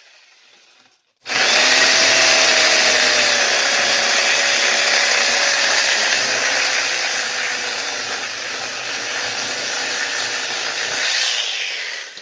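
A power saw cutting wood without a break for about ten seconds, its pitch sagging slowly under load. It starts about a second in and stops shortly before the end.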